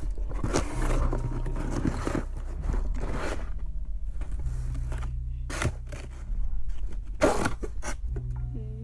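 Items and packaging being handled during an unboxing: irregular short scrapes and rustles, over a steady low hum.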